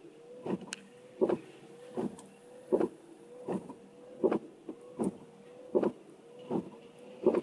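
Car windscreen wipers running fast, heard from inside the cabin, thumping at each stroke about every three-quarters of a second over a steady motor hum.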